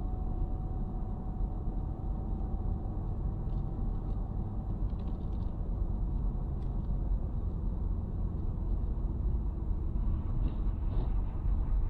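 Steady low rumble of a car's road and engine noise, heard from inside the cabin by a dash cam while driving on a highway. A faint steady whine fades out about five seconds in.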